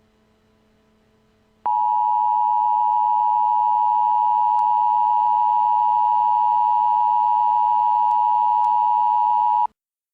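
NOAA Weather Radio's single-tone 1050 Hz warning alarm: one steady tone that starts abruptly about two seconds in, holds for about eight seconds and cuts off sharply. Before it there is only a faint hum.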